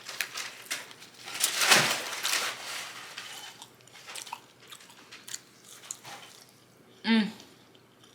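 A person chewing and biting food with crunching mouth sounds, loudest about a second and a half in, then softer chewing. A brief voiced sound near the end.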